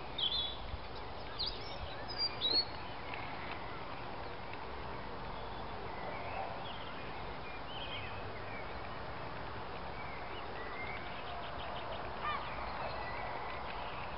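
Short, high chirping animal calls, several in the first three seconds and a few fainter ones later, over a steady hiss.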